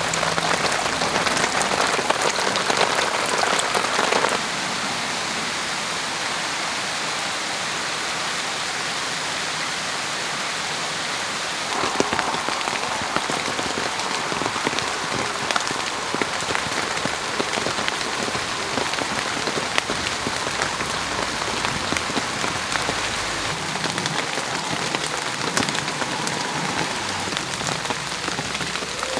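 Steady summer rain falling on a garden: an even patter of drops with scattered sharper drop ticks. It is louder for the first four seconds or so, drops suddenly, then grows louder again about twelve seconds in.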